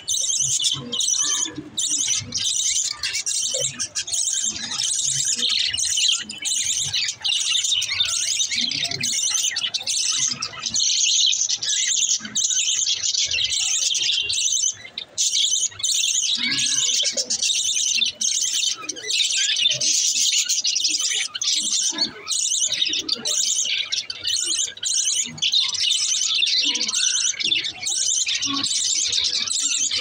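A flock of budgerigars chattering and warbling together: a dense, unbroken mass of overlapping high chirps.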